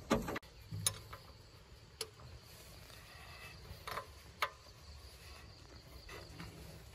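About five sharp metallic clicks and taps of an open-end wrench on the line fittings of a John Deere 5610 tractor's diesel injection pump, loosening the nuts to bleed air from the fuel system. The loudest come at the very start and about four seconds in, over a faint steady high tone.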